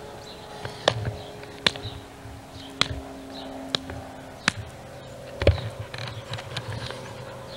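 A hand patting a dog's side: sharp taps about once a second, the loudest about five and a half seconds in, over a faint steady hum.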